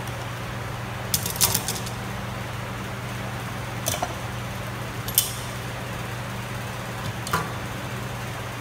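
Steel hand clamps clinking as they are handled and fitted onto a wooden box: a short cluster of sharp clinks about a second in, then single clinks around four, five and seven seconds in, over a steady low hum.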